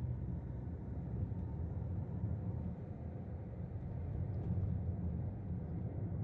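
Steady low running noise of a 2007 Toyota Premio's 1500 cc four-cylinder engine on a test drive. The engine runs smoothly now that the shorted ignition coil that caused the misfire has been replaced.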